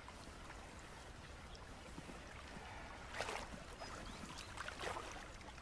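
Faint lapping of lake water, with two brief soft noises about three and five seconds in.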